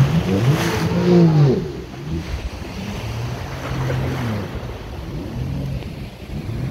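Sea-Doo GTI jet ski engine revving up and down as it pulls away through breaking surf, loudest about a second in. Waves wash and wind buffets the microphone throughout.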